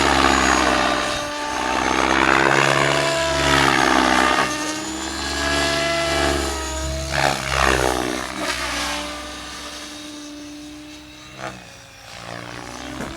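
Electric 12S RC helicopter flying: rotor blade noise and motor whine that rise and fall in pitch as it is put through manoeuvres. It grows quieter from about nine seconds in.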